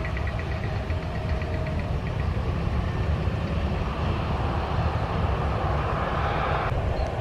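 Strong wind buffeting the microphone as a heavy, uneven rumble, with a steady hiss building about four seconds in and cutting off abruptly near the end.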